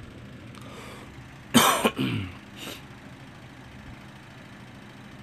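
A man clears his throat with a short cough about a second and a half in, followed by two smaller throat sounds, over a steady low background hum.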